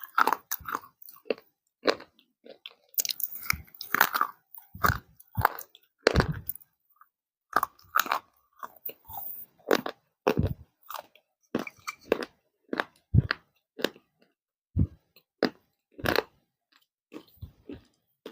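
Close-up crunching of baked clay being bitten and chewed: a run of sharp, irregular crunches with a short pause about seven seconds in.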